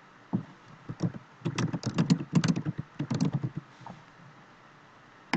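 Typing on a computer keyboard: a quick run of keystrokes that starts just after the beginning, comes thickest in the middle and stops a little past halfway.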